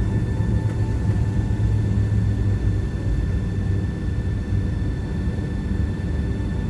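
Jet airliner heard from inside the cabin: a steady low engine and airframe rumble with a thin, constant high whine over it.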